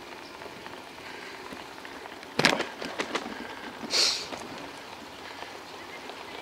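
Bicycle rolling over cobblestones: a steady rattling patter, with a sharp knock and a few smaller clicks about two and a half seconds in and a brief hiss about four seconds in.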